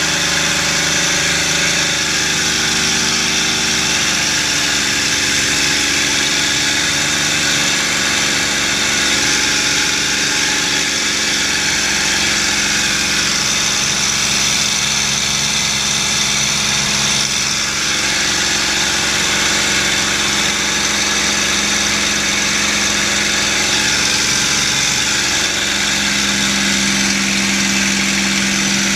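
P-51 Mustang's V-12 engine and propeller running at high power in the takeoff climb, heard inside the cockpit over a steady rush of air. The engine note steps down in pitch a few seconds in and shifts again later.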